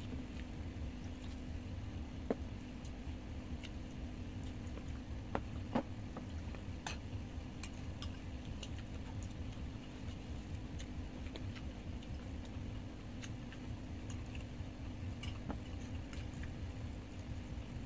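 Eating sounds: chopsticks and spoons clicking now and then against bowls and plastic food containers, with soft chewing, over a steady low hum. The sharpest clicks come about two seconds in and around six seconds in.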